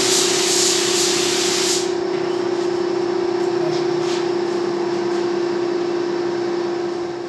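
Spray gun hissing as paint is sprayed onto a CNC-cut MDF panel, cutting off about two seconds in. A steady motor hum from the spray equipment runs underneath.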